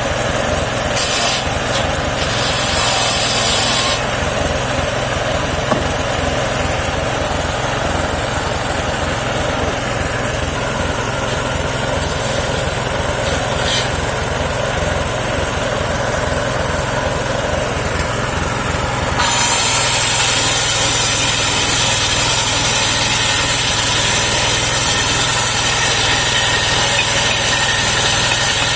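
Engine of a home-built mobile circular sawmill running steadily. About 19 seconds in it gets louder and a steady high hiss joins it until the end.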